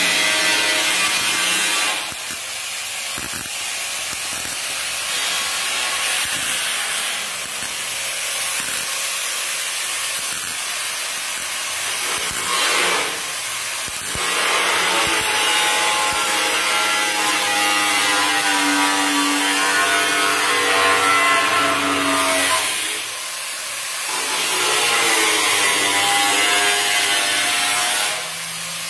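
Bodywork on a Volkswagen Beetle shell: a welder sizzling over a power tool, likely a grinder, whose whine sags and rises under load, with short breaks a few times.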